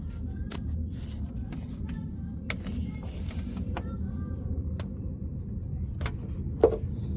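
Scattered metallic clicks and clinks of hand tools and engine parts over a steady low rumble, with one louder sharp click near the end.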